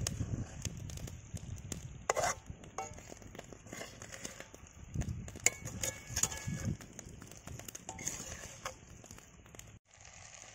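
Metal ladle scraping and clinking against an iron kadai as fried egg paniyaram is stirred in its gravy, with a light crackle from the pan.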